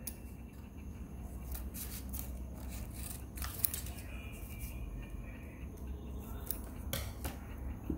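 Zippo lighters being handled: light metallic clicks and scrapes scattered irregularly over a low steady hum.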